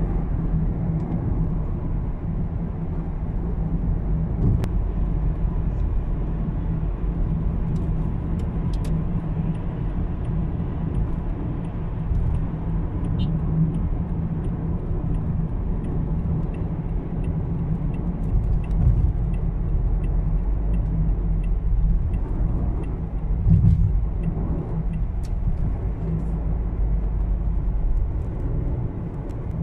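Steady low rumble of engine and tyre noise heard from inside a moving car's cabin.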